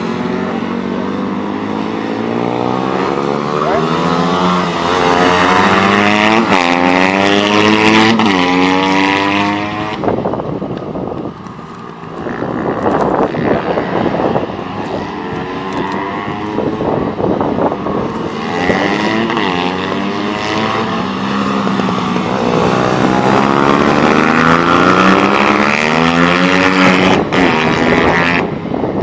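Several pit bikes' small single-cylinder engines revving hard. The pitch climbs with each gear and drops back again and again as the bikes accelerate, shift up and pass by, with more than one engine heard at once.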